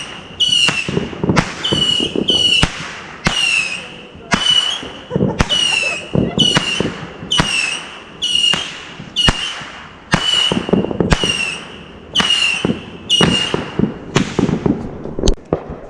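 Multi-shot consumer firework cake firing a rapid string of shots, about two a second, each with a short whistle that falls slightly in pitch. The string stops shortly before the end.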